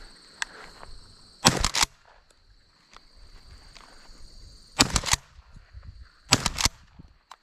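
Three shotgun shots fired at a flying mourning dove, the first about a second and a half in, the next two about three and a second and a half apart after it, each a sharp blast with a short echo.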